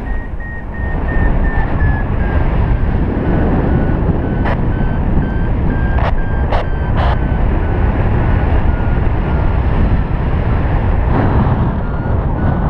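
Paragliding variometer beeping in quick, short beeps, the audible climb signal, its pitch sagging slightly through the middle, over heavy wind rush on the microphone in flight. A few sharp clicks come about a third and halfway through.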